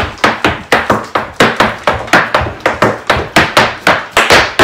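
Irish dance hard shoes striking a hard floor in a fast, rhythmic run of sharp clicks and stamps, roughly four to five a second.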